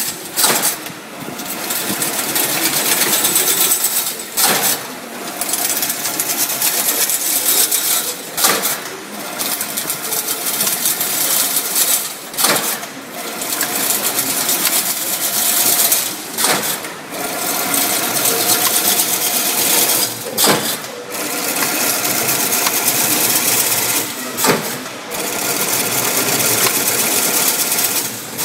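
Fully automatic chain link fence machine running, a continuous metallic clatter as it forms wire into the mesh. Every four seconds or so the clatter briefly drops away with a sharp clank as the weaving cycle repeats.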